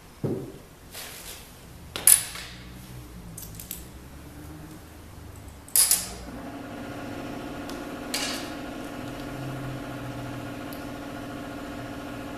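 Sharp metal clinks of steel roller rocker arms and their adjusting nuts being picked up and set onto the studs of a cast-iron big-block Chevy cylinder head, four or so spaced a couple of seconds apart. About six seconds in, a steady machine hum starts and keeps on.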